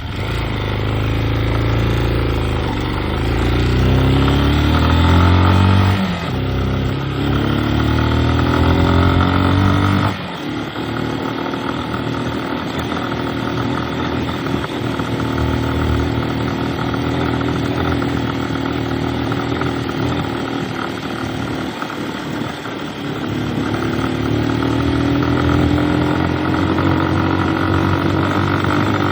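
A vehicle engine running under way. Its pitch climbs and falls back twice during the first ten seconds, as if speeding up through the gears, then settles into a steadier drone that slowly rises again near the end.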